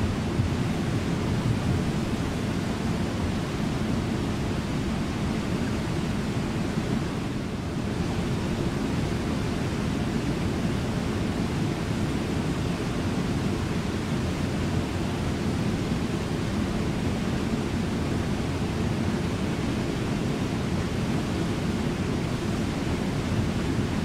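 Brooks Falls, a low waterfall on the Brooks River, and the rapids below it, making a deep, steady rush of water.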